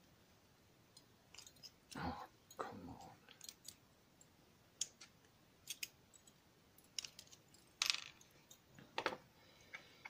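Pliers working a thick steel C-clip off the back of a lock cylinder: scattered small metallic clicks and scrapes, with a few louder knocks about two seconds in, near three seconds and again around eight and nine seconds.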